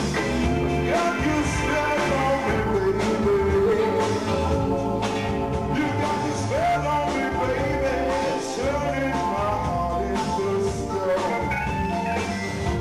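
Live rock band playing a Latin-tinged blues-rock song: electric guitar and keyboards over bass and drums, with a lead line that bends in pitch.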